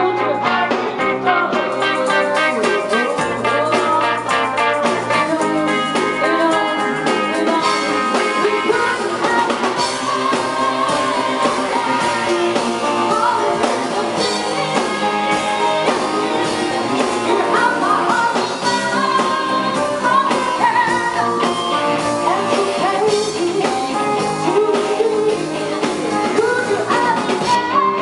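Live rock band playing: a woman singing over electric guitars, bass guitar and a drum kit.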